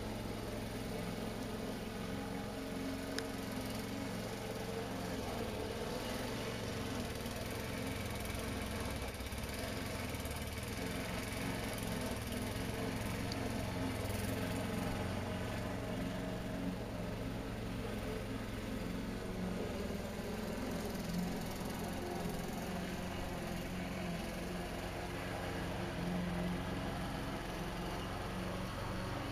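Steady, unbroken vehicle engine hum with a low drone.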